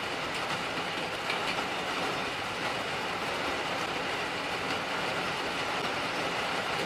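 Steady, even rushing outdoor background noise with no distinct events.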